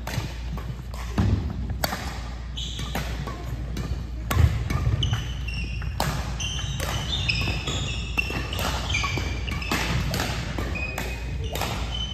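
A badminton rally in a gym hall: rackets strike the shuttlecock in sharp, repeated cracks, and sneakers squeak in short high squeals on the court floor through the middle of the rally. A heavy thud of a landing footfall about four and a half seconds in is the loudest sound, and everything echoes in the hall.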